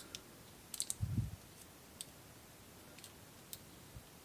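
Light metallic clicks of small steel parts being handled and pressed into an air-rifle trigger unit: a few scattered clicks, a quick cluster just before a second in, and a soft low bump just after.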